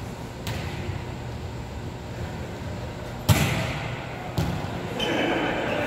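A volleyball being struck by hand: a sharp, loud smack about three seconds in that rings in the large hall, and a smaller hit about a second later, over a steady low hum.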